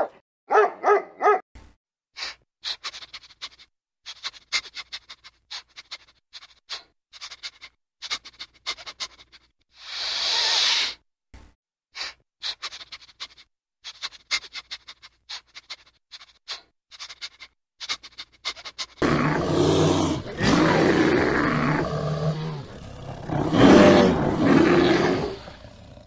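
A dog's short pitched call at the start, then a long run of quick clicks and crunches with a brief hiss partway through, then a brown bear growling loudly in two long calls near the end.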